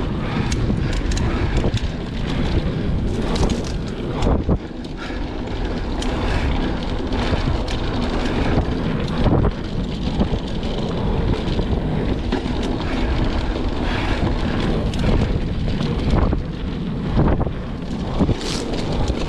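Wind rushing over the camera microphone as a mountain bike rides fast down dirt singletrack, tyres rolling on dirt, with frequent knocks and rattles from the bike over bumps.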